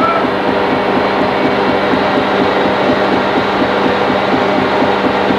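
Trawler deck machinery running steadily and loudly, a continuous mechanical noise with a fast, even pulse and a steady hum underneath.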